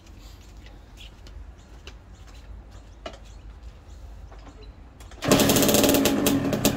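Kawasaki KX65's 65cc two-stroke single-cylinder engine kick-started from cold, firing up suddenly about five seconds in and running loud. Faint bird chirps before it catches.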